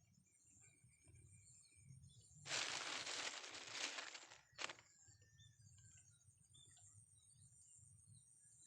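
Quiet outdoor ambience of small birds chirping over a steady high-pitched whine. About two and a half seconds in, a loud rush of noise lasts roughly two seconds, followed by a single sharp click.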